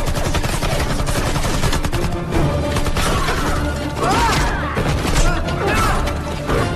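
Heavy, sustained automatic gunfire from a film battle soundtrack: many rapid shots packed close together, over action music.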